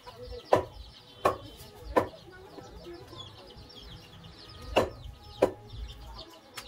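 Butcher's cleaver chopping goat meat on a wooden chopping block: five sharp chops, three in quick succession, a pause, then two more.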